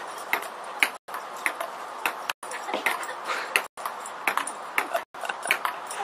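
Table-tennis ball knocked back and forth in a rally: sharp, light clicks of ball on table and paddle, one every half second or so, over a steady background hiss. The sound briefly cuts out about every second and a half.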